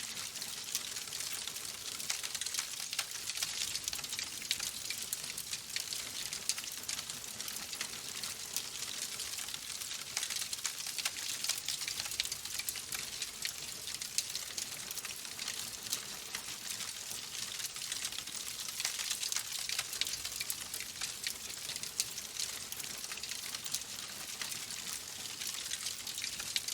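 Wood fire burning in a fireplace: logs crackling with a steady stream of small, sharp pops and snaps over a constant hiss.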